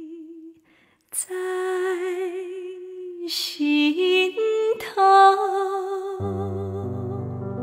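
A woman singing a slow melody unaccompanied, holding long notes with vibrato, with a short breath pause about a second in. Near the end she starts playing sustained chords on a digital keyboard beneath her voice.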